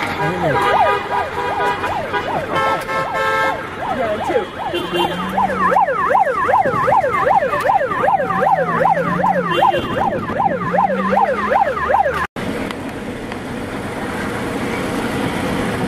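Emergency vehicle siren cycling up and down in pitch, settling into a fast, even yelp from about six seconds in, with car horns honking for about a second near the three-second mark. The sound drops out for an instant about twelve seconds in, then the siren comes back over steady traffic noise.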